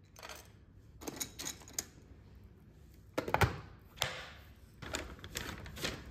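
Dry dog kibble rattling from a plastic scoop into stainless steel bowls, then a plastic food-storage bin's lid being pressed down and latched, giving a run of sharp plastic clicks and knocks, the loudest about three and a half seconds in.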